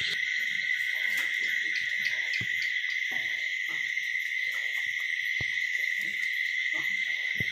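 Steady high-pitched chirring of insects, crickets or cicadas, with faint low rustling and shuffling beneath and two sharp clicks near the end.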